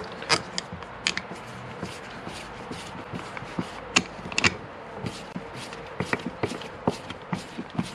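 A screwdriver turning a small screw down into a Mikuni carburettor body: a run of light metallic clicks and ticks, scattered at first and coming faster and more evenly near the end.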